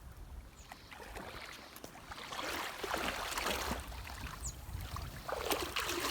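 Water washing and splashing in two swells, like small waves running in against a shore or hull.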